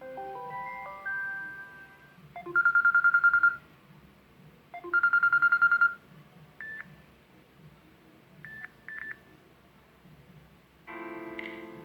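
Samsung Galaxy Note 9 ringtones playing one after another. A short melodic chime ends, then an electronic telephone-style trill rings twice about two seconds apart, followed by a few short beeps, and a new, fuller ringtone starts near the end.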